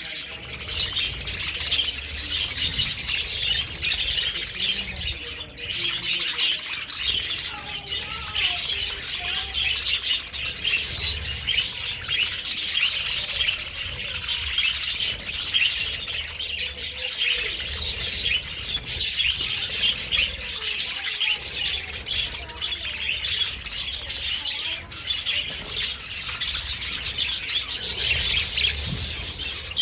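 A flock of budgerigars chattering and warbling continuously, many birds calling over one another.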